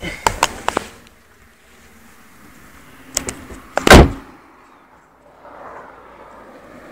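A few quick clicks and rattles of a handle and latch, then a car door slamming shut with one heavy thump about four seconds in.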